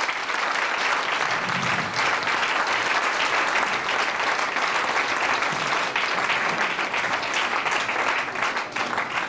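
Audience applauding with steady, dense clapping that dies away near the end.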